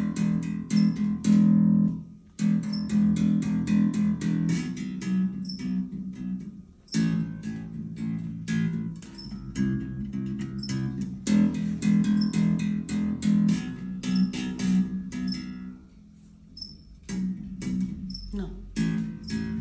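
Four-string electric bass played fingerstyle: steady runs of plucked notes, breaking off briefly about two, seven and sixteen seconds in.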